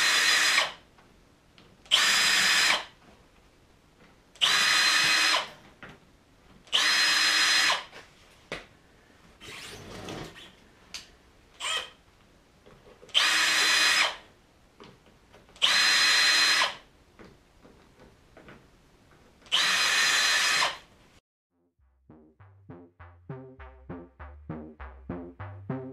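Power drill spinning a stud-sharpening tool down onto the steel traction studs of a snowmobile track, putting new points on them in short bursts of about a second each, seven in all, with quiet pauses between. Near the end the drilling stops and rhythmic electronic music comes in.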